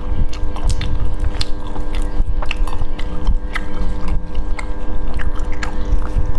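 Cooked clam shells clicking and cracking as plastic-gloved fingers pry them open, irregular sharp clicks several times a second, with wet chewing, over a steady low hum.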